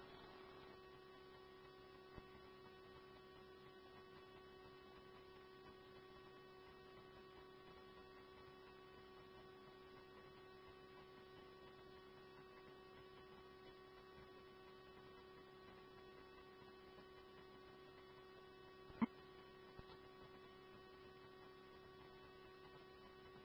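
Near silence: a faint, steady electrical hum on the radio scanner feed between transmissions, with one short click about nineteen seconds in.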